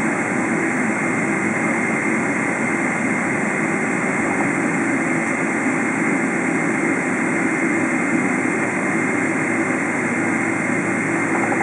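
Cabin noise inside a Boeing 777-300 taxiing after landing, its jet engines at low power: a steady noise with a faint, steady high tone running through it.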